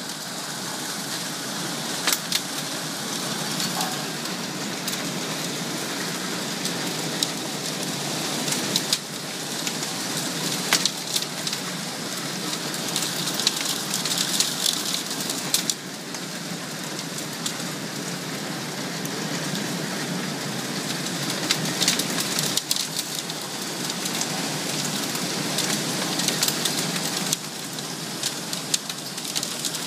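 Hailstorm: a steady hiss of hail and rain falling, with frequent sharp clicks of hailstones striking hard surfaces.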